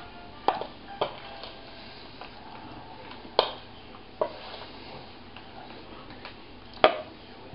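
Metal spoon clinking and scraping against a bowl as chocolate is scooped out: about five separate sharp clicks spread over several seconds, the last one near the end the loudest.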